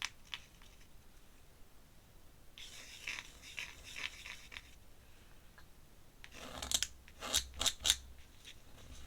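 Pen nib scratching on paper: a stretch of light scratchy strokes, then a quick run of five or six sharper strokes about two-thirds of the way in.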